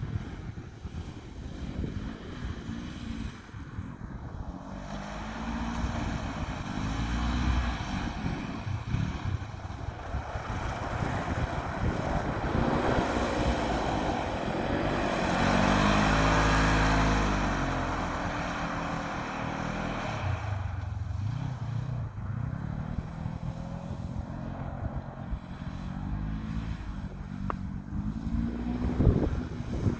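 Polaris RZR 900 Trail's 875 cc twin-cylinder engine revving up and down repeatedly as the side-by-side is driven and drifted on ice, loudest about halfway through.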